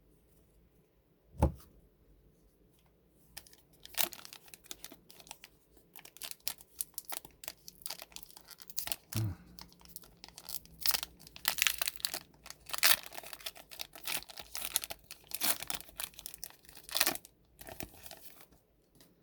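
Plastic wrapper of a 2021 Upper Deck Goodwin Champions trading-card pack being torn open and crinkled by hand, with many quick crackles from about four seconds in until near the end. There is a dull thump about a second and a half in.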